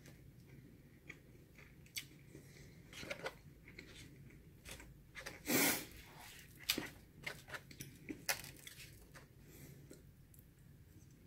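Close-up mouth sounds of chewing and eating a soft curry-and-rice dish, with short sharp clicks of a plastic fork against a plastic takeout container. There is one louder scraping noise a little past halfway.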